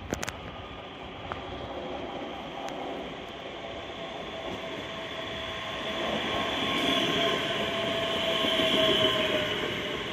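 ScotRail Class 385 electric multiple unit coming in along the platform and passing close by. Its running noise on the rails grows louder as it comes alongside, with a steady whine over it that fades near the end.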